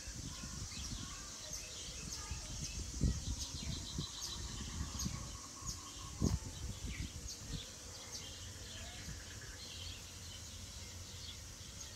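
Outdoor ambience: small birds chirping in many short, high calls over a steady high hiss, with a few low thumps, the loudest about three and six seconds in.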